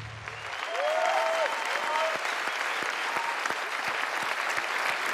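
Audience applauding, the clapping rising as a low music bed stops in the first half-second and then holding steady.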